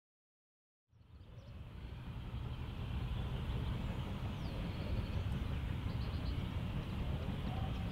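Distant steam locomotive working under steam, heard as a steady rumble that fades in about a second in.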